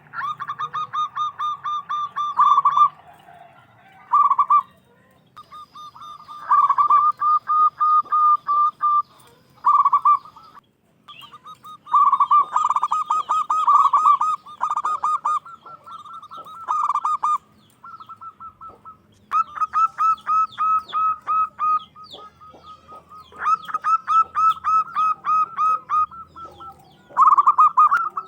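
Zebra dove calling: quick runs of short, ringing cooing notes, about five a second, in bouts of one to three seconds with short gaps between them.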